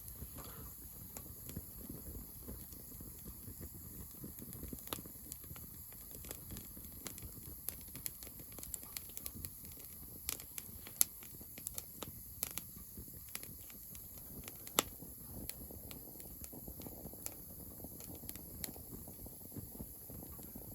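Wood bonfire crackling: irregular sharp pops and snaps over a low steady rumble, with two louder snaps about halfway through and about three quarters of the way through.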